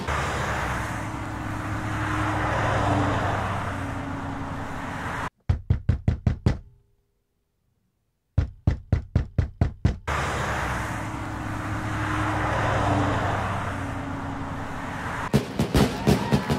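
A car passing with road noise that swells and fades over about five seconds. Then comes rapid knocking on a door: two bursts of about seven quick knocks each, a second and a half of silence apart. The passing-car noise comes again, and a new burst of knocking starts near the end.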